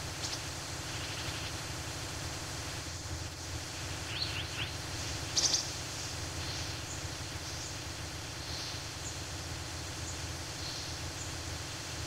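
Forest ambience: a steady background hiss with scattered high bird chirps. A quick run of short falling notes comes about four seconds in, and the loudest chirp about a second later.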